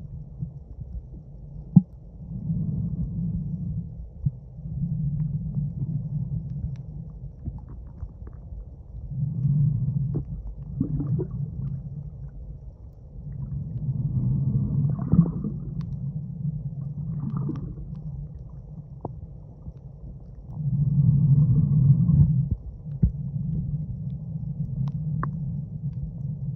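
Muffled underwater rumble of moving water on a submerged phone microphone, low and dull, swelling and fading every couple of seconds, with a few short clicks.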